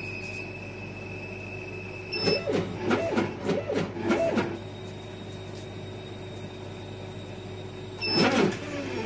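Laser cutter running with a steady hum and a faint high whine, its gantry stepper motors whining up and down in pitch as the cutting head makes a flurry of quick moves from about two seconds in, and once more near the end.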